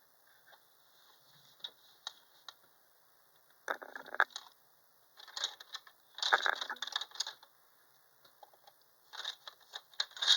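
Spare sewing-machine presser feet being picked over by hand, small hard parts clicking and rattling against each other in three short spells.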